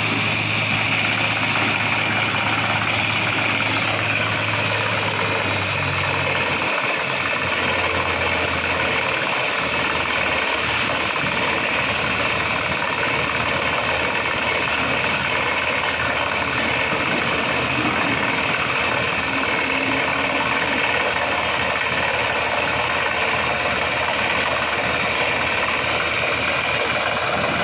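Heavy machinery's diesel engine running steadily, with a low hum that drops away about eight seconds in.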